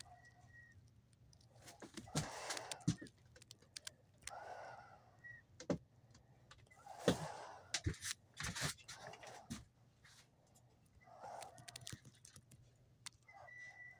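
Irregular light clicks, knocks and short rustles of objects being handled and moved about, with a brief steady high tone near the end.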